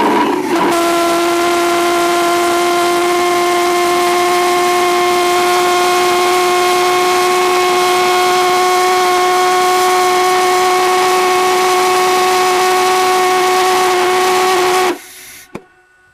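Propane-fuelled, all-stainless valveless pulsejet (Lady Anne Boleyn Rev.07) running with a loud, steady buzzing drone at one pitch. It cuts out suddenly about 15 seconds in, which the builder puts down to the fuel setting not yet being right.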